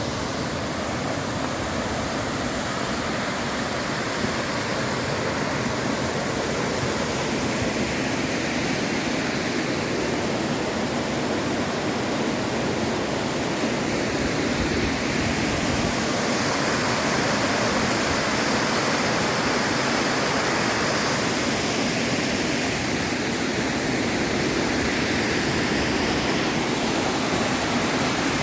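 Cascading mountain waterfall: a steady, loud rush of falling water.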